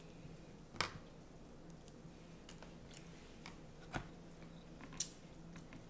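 Fork clicking and scraping against a plastic takeout salad container, with soft chewing between. There are a few sharp clicks, the loudest about a second in and others near four and five seconds.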